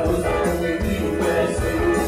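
Live rock band playing, with electric bass and guitar and a male singer at the microphone.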